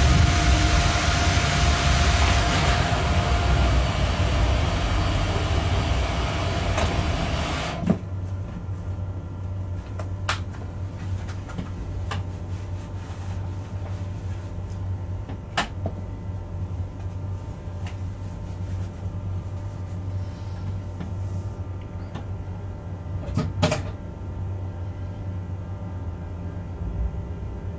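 Freight locomotive cab noise while the train is moving: a loud rumble and rush that drops suddenly about eight seconds in to a quieter steady low hum, with a few sharp clicks or knocks scattered through it.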